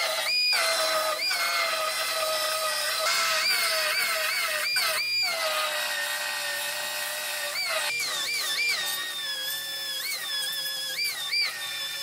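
Belt file sander grinding steel sheet metal to cut off a car's rear body panel. It makes a steady high whine over a hiss, and the pitch drops under load and jumps back up each time the belt comes off the metal, many times over.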